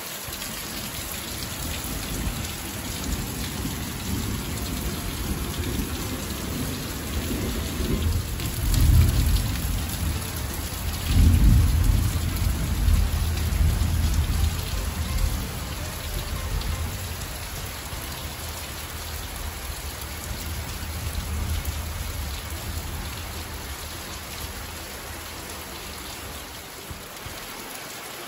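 Heavy rain falling steadily, with low rolling thunder that swells about a third of the way in, peaks again a few seconds later, then fades away.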